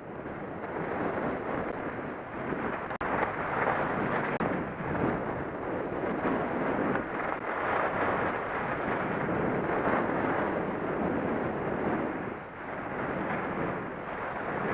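Wind rushing over a helmet-mounted camera's microphone during a downhill ski run, mixed with the hiss of skis sliding on groomed snow. It rises and falls in strength and eases briefly near the end.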